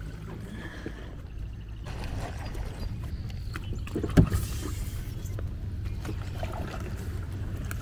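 Small boat on the water with a steady low rumble of wind on the microphone, and one sharp knock with a thud about four seconds in.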